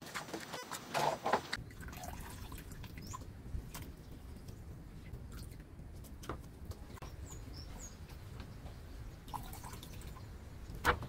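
Water dripping and splashing as hands squeeze and lift sliced banana blossom in a wooden bowl of water, with a few faint bird chirps.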